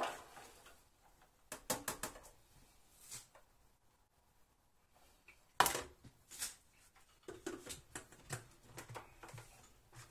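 Scattered knocks and clatter of vegetables being tipped into the stainless-steel bowl of a Monsieur Cuisine Plus food processor and of the bowl being handled, with the loudest knock about halfway through.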